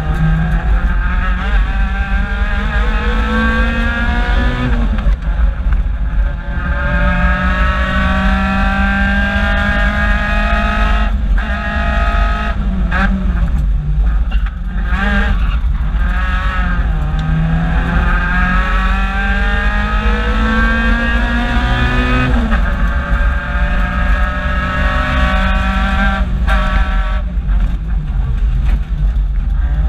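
Toyota AE86's four-cylinder engine heard from inside the cabin, pulling hard with its pitch climbing in three long runs through the revs. Each run breaks off with a sudden drop at a gear change or lift, with several quick drops in a row near the middle.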